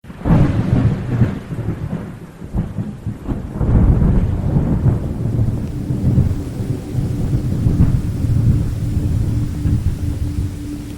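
Thunder over rain: a clap starts suddenly and crackles for the first few seconds, then settles into a long low rumble. A faint steady low hum comes in about halfway.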